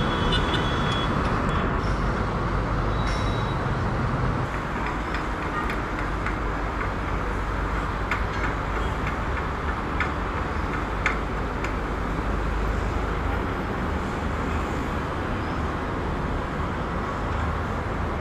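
Jet airliner engines running, heard as a steady rushing noise with a low rumble. The rumble drops away about four seconds in, then the steady rushing carries on.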